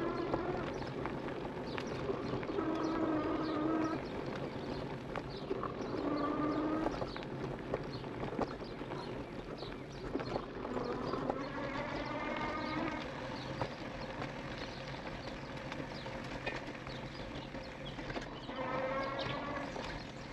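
E-bike ridden on a dirt singletrack: the electric motor whines in several stretches of a second or more as the pedal assist works, over steady tyre and trail noise and frequent small rattles and knocks from the bike going over bumps.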